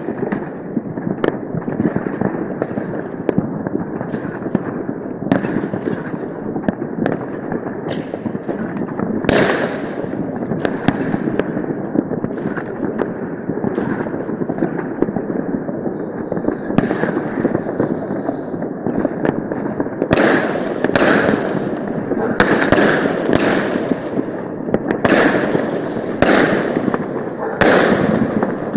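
Many fireworks and firecrackers going off without a break: a dense, continuous crackle dotted with sharper bangs, which come thicker and louder in the last third.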